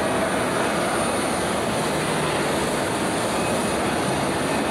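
Steady jet airliner noise on the apron, a continuous rushing hiss from engines or the auxiliary power unit running nearby, with a faint high whine.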